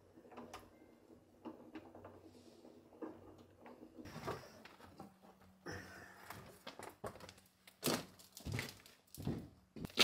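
Scattered knocks and scrapes of stone rubble and blocks being handled and set down, the strikes louder and closer together near the end.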